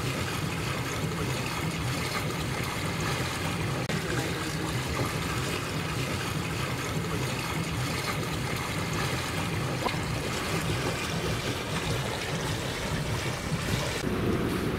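Steamship running: a steady rushing, trickling hiss over a low rumble, changing abruptly near the end.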